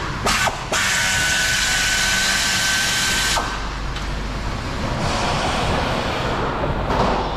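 A power tool runs for about three seconds with a steady high whine, following two sharp clicks near the start. It is used while working on the car's steering rack and suspension.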